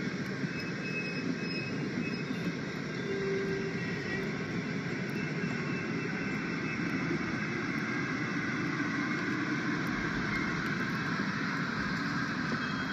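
Train running steadily past, a continuous even rolling noise with faint steady tones above it.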